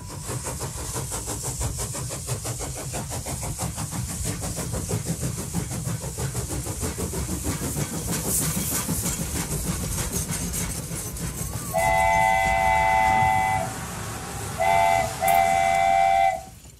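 Steam locomotive sound effect: steady fast chugging, then a loud chord whistle blown once for about two seconds, followed near the end by a short blast and a longer one.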